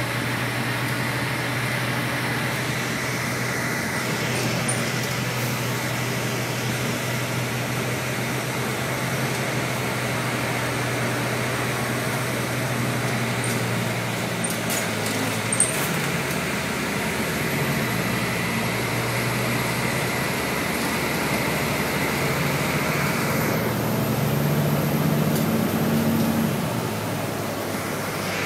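A road vehicle on the move: a steady engine hum under even road and tyre noise. There is one short click about halfway through, and a faint high whine from a little past halfway until near the end.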